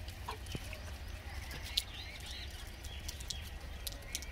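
A troop of gray langurs feeding on grain scattered over the ground, with scattered small clicks and rustles as they pick through it. Short high chirps come and go throughout, over a steady low rumble.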